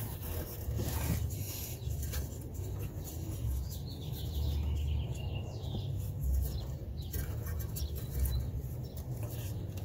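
A hand fumbling behind exhaust parts at an oxygen sensor's plastic connector clip, with light scattered rubbing and clicks over a steady low rumble. Faint birds chirp in the background.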